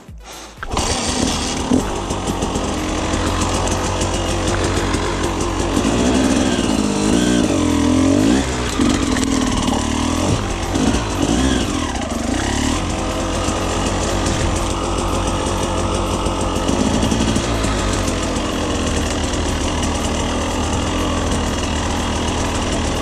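Husqvarna TE 300 two-stroke enduro motorcycle engine running under riding load, starting abruptly about a second in, its revs rising and falling repeatedly.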